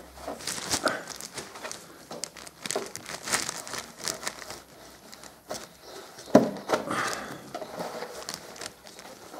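A cloth rag scrubbing and crumpling against the underside of a motorcycle engine, wiping off oily grime, in irregular scratchy rustles. There is one sharper knock about six seconds in.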